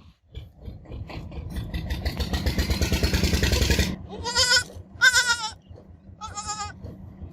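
A goat kid bleats three times with short, high, wavering calls, about four, five and six and a half seconds in. Before them comes a loud, rough, fast-pulsing rumble lasting a few seconds.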